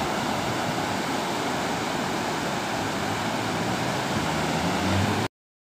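Strong surf breaking and washing up the beach, a steady rush of water noise. It cuts off suddenly near the end.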